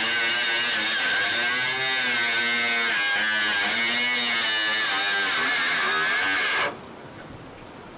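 Small electric power tool running and cutting carbon fibre, its whine wavering up and down in pitch as the load changes, then stopping abruptly near the end.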